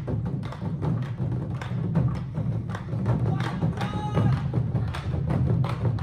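An ensemble of Korean drums mounted on tall stands, struck with sticks in unison: a fast, steady rhythm of deep drum strokes, several a second.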